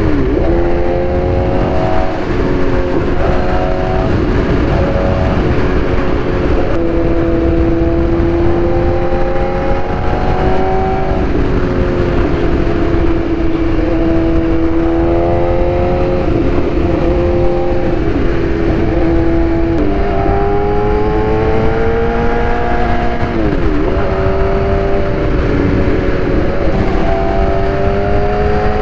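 BMW S1000RR inline-four engine running at road speed. Its note drifts up and down with the throttle and jumps sharply in pitch several times as it shifts gear. Heavy wind rush on the microphone lies underneath.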